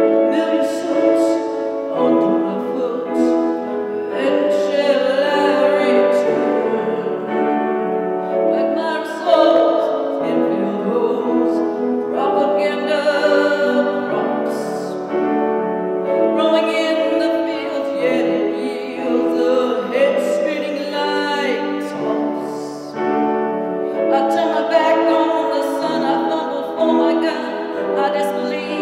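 A woman singing with grand piano accompaniment, her voice holding and gliding between long notes over sustained piano chords.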